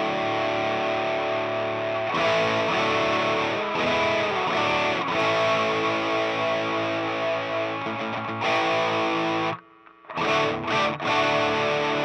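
Electric guitar played through a homemade Tube Screamer-style overdrive pedal into a Marshall amp, with the pedal engaged: overdriven chords ring out one after another. A little before the end the guitar is muted for a moment, then comes back with a few short chopped chords.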